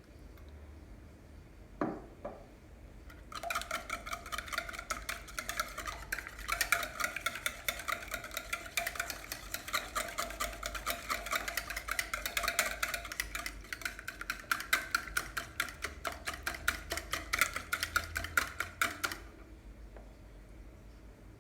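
A utensil beating rapidly in a bowl for about fifteen seconds, a fast run of clicks against the bowl, which rings with each stroke; a single knock comes just before the beating starts.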